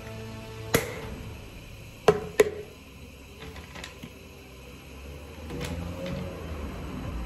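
Plastic food container lid snapped shut: a light click, then two sharp snaps about two seconds in. Then a plastic packet of sliced ham rustles as it is handled.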